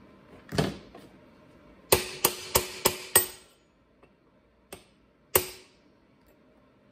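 Claw hammer tapping lightly on a steel socket held against a chainsaw's clutch, to rock a seized piston loose: a duller knock first, then a quick run of five sharp metallic taps, and one more tap later on.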